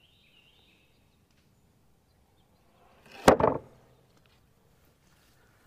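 A single sharp knock about three seconds in, dying away within half a second, with faint bird chirps near the start and near the end.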